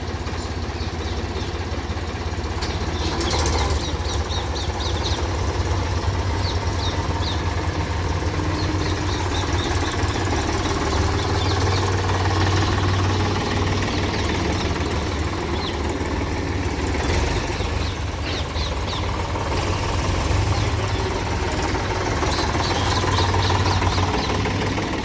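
Diesel engine of a JCB digger working under load, a deep steady rumble that swells and eases repeatedly. Short runs of rapid light clinking come and go above it several times.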